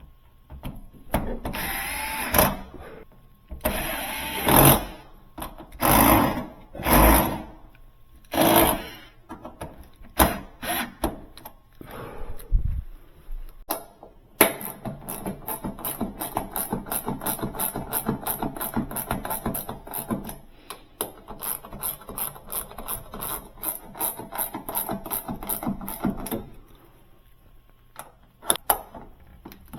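Tool work refastening a refrigerator's door panel: several short loud bursts in the first nine seconds, then about twelve seconds of rapid, even clicking, with a few more clicks near the end.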